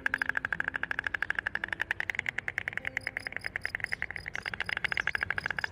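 White stork bill-clattering: the beak snapped open and shut rapidly, giving a fast, even rattle of sharp clacks.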